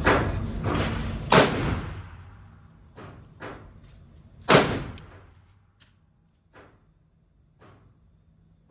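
Gunshots at an indoor range: loud shots at the start, about a second and a half in and about four and a half seconds in, each trailing a reverberant echo, with fainter shots in between from farther off.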